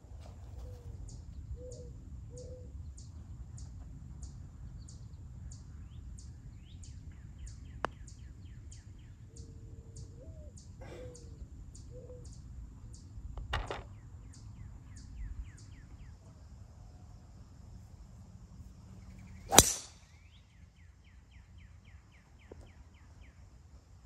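Golf-course ambience with no talk: a high chirp repeating about twice a second, short bird calls and trills, and a couple of light clicks of club or putter on ball. Near the end comes a single loud, sharp crack of a driver striking a golf ball off the tee.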